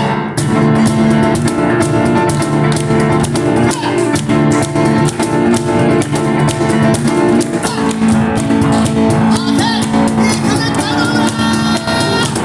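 Live instrumental music from a piano-and-cajon duo: a Kawai piano playing a fast, busy line over steady, driving cajon strikes.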